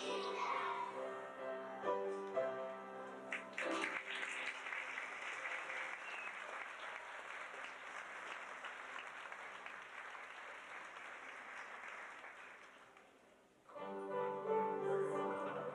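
The last notes of a song with musical accompaniment, then an audience applauding for about nine seconds, dying away; music starts up again near the end.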